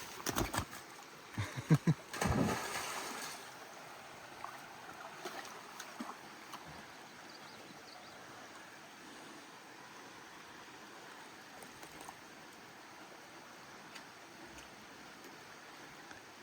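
Shallow brook flowing faintly and steadily. A cluster of loud, sudden sounds comes in the first three seconds, then only the water is left.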